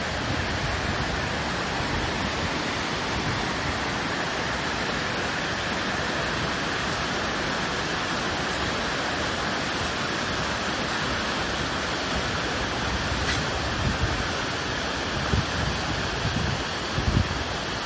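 Steady rushing noise, even and unbroken, with a few low thumps in the last few seconds.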